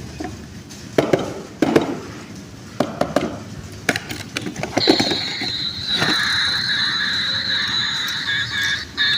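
Toys and packaging being handled: sharp clicks and short crinkling rustles. About five seconds in, a steady high-pitched whine starts and carries on.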